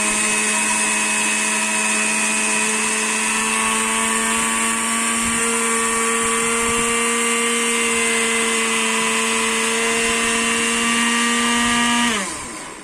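Electric spice grinder running steadily with a high motor whine while grinding spices, then switched off about twelve seconds in, its pitch falling as the motor spins down.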